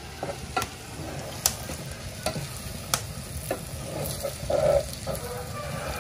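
Wooden spoon stirring spaghetti in a stainless-steel pot, with sharp taps as it knocks against the pot's sides every second or so, over the steady sizzle of the pasta cooking on the wood-stove's iron hot plate.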